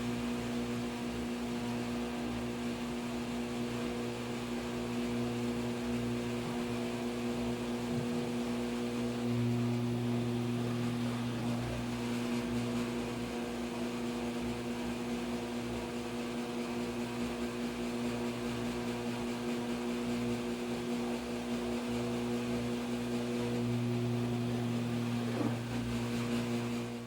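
Washing machine running with a steady mechanical hum. The low part of the hum swells twice, about a third of the way in and again near the end.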